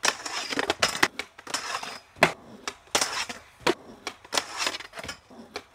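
Skateboard trucks grinding and scraping along a metal handrail, broken by many sharp clacks and knocks as the board hits the rail and the ground.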